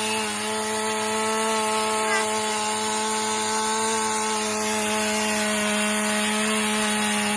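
Power tool running at a steady speed, cutting: a constant motor whine over rough cutting noise that starts and stops abruptly.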